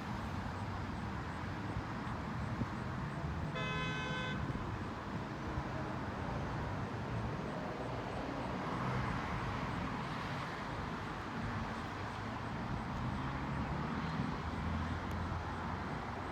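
Steady outdoor vehicle rumble, with one short horn-like toot about four seconds in.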